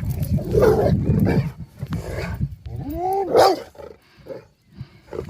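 Dogs vocalising with excitement: a low rough rumble over the first second or so, then pitched calls that rise and fall about three seconds in.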